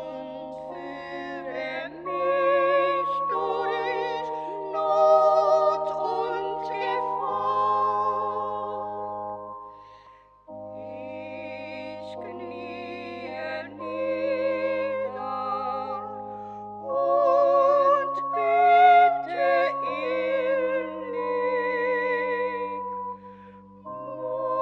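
Church choir singing a hymn in slow, held phrases with vibrato, pausing briefly about ten seconds in.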